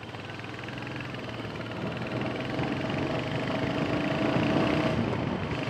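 Royal Enfield Hunter 350's single-cylinder engine pulling away and accelerating, growing steadily louder, with a brief dip about five seconds in. Heard through a microphone inside the rider's helmet.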